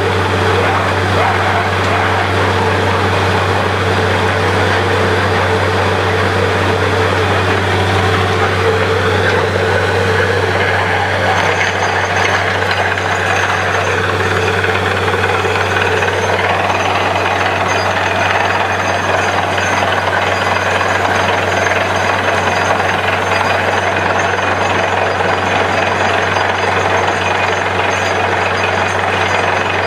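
Borewell drilling rig running steadily: a heavy machine hum under a continuous noisy clatter of the drill at work.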